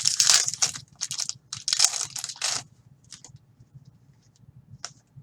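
Trading cards being handled: three rustling swipes in the first two and a half seconds as cards or a foil pack wrapper slide and rub, then a few faint taps.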